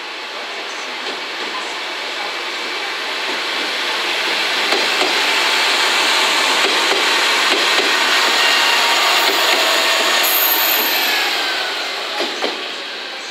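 Two-car KiHa 47 diesel railcar set passing slowly close by: diesel engine running and wheels rolling over the station track, with thin high wheel squeals. It is loudest in the middle, then eases off as the train moves away, with a couple of sharp knocks near the end.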